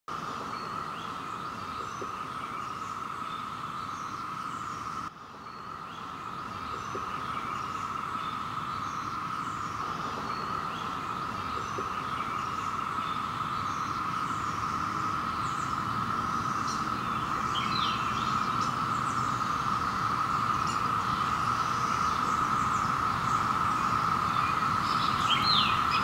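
Brood X periodical cicadas chorusing: a steady, high, even drone that grows gradually louder, dipping briefly about five seconds in. Birds chirp over it, more often in the last ten seconds.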